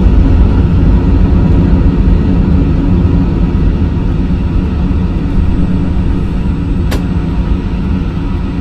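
Flight simulator's played-back jet takeoff and climb sound: a loud, steady low rumble that slowly fades. A single sharp click about seven seconds in.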